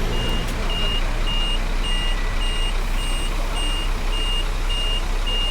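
Vehicle reversing alarm beeping steadily, about two high beeps a second, over a constant background rumble.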